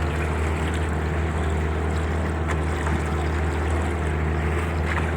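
Motorboat engine running steadily, a constant low drone heard from on board, with water and wind noise over it.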